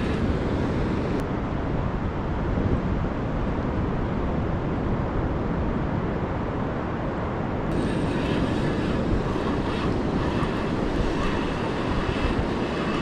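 Steady rushing noise of wind and breaking surf, even and without a beat.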